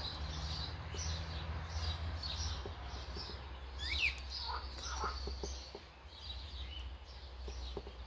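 Scattered faint bird chirps, with a short falling whistle about four seconds in, over a steady low hum of outdoor background noise.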